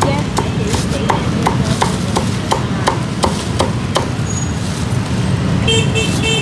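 Cleaver chopping roast pork on a wooden block, a steady run of sharp knocks about three a second that stops about four seconds in. Street traffic runs underneath, and a few short pitched beeps come near the end.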